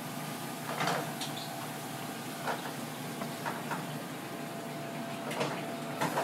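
Knife and fish handled on a plastic cutting board during filleting: several short taps and knocks, the loudest about a second in, over a steady background hum.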